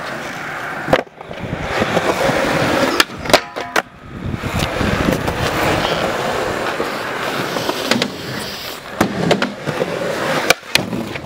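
Skateboard wheels rolling on concrete, a steady rushing rumble broken by several sharp clacks and knocks as the board hits the ground. The loudest clacks come about three seconds in and near the end.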